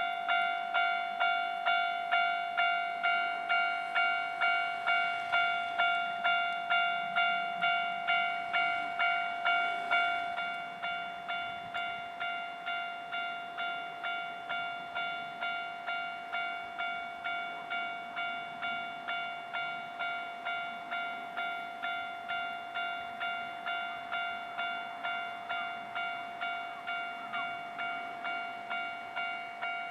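Japanese railway level-crossing warning bell ringing in a steady repeating pattern of just under two rings a second. It becomes noticeably quieter about ten seconds in and keeps ringing.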